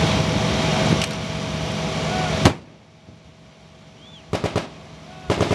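A loud steady rushing noise with a low hum ends in a single sharp bang about two and a half seconds in. After a quieter stretch come two short, rapid bursts of machine-gun fire near the end.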